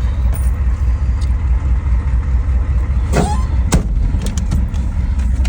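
Ford 6.9 L IDI V8 diesel running under way, a steady low pulsing rumble heard from inside the truck's cab. About three seconds in, a short rising squeak ends in a sharp click.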